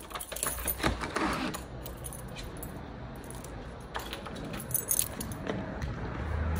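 Small loose metal pieces jingling and clinking in scattered bursts, most of them in the first second or so, with a single sharp click about four seconds in as a door handle is turned.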